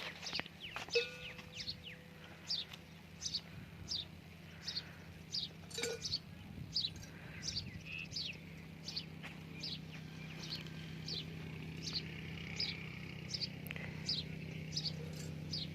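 A small bird calling over and over, short high chirps that slide downward, about two a second, over a steady low hum.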